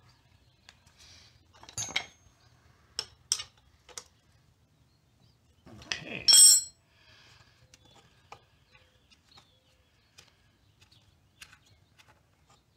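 A few sharp metal clicks and clinks, the loudest about six seconds in with a brief ring: a combination wrench being handled and fitted to the scooter engine's oil drain plug as the plug is put back in.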